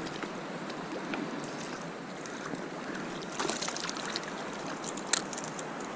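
River water rushing steadily over rapids. There are a few faint clicks about three and a half seconds in and a sharper click just after five seconds.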